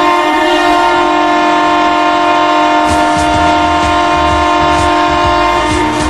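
Arena goal horn blowing one long, steady, loud blast that cuts off just before the end, with a low rumble joining underneath about halfway through.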